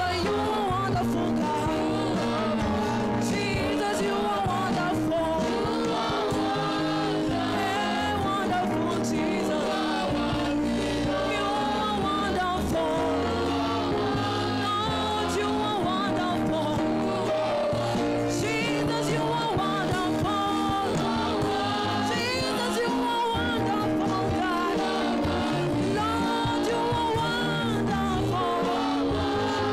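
A woman singing a gospel praise-and-worship song into a microphone, with live band accompaniment of keyboard and drums.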